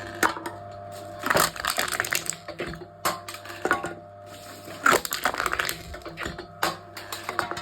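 Aluminium drink cans being crushed in a machine: irregular crunching and crackling of thin metal, with sharper cracks about a second and a half in and again about five seconds in.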